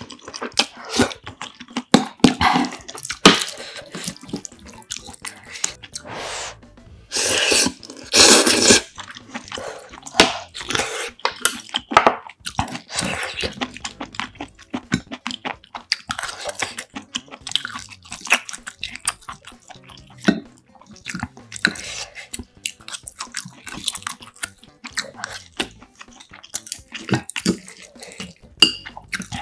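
Close-miked eating: noodles from a bowl of spicy chicken soup (dakgaejang) slurped in a few loud bursts during the first nine seconds, then steady wet chewing and mouth sounds. Chopsticks click lightly against the dishes.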